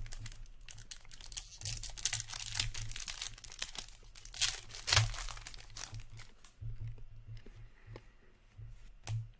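Hockey trading-card pack wrapper being torn open and crinkled, a dense crackling rustle that is loudest about five seconds in. It thins to quieter, scattered rustles and ticks as the cards are handled.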